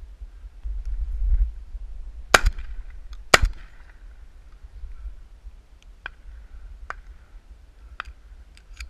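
Shotgun fired twice, about a second apart, at flushing chukar. Several much fainter sharp clicks follow, over a low wind rumble on the microphone.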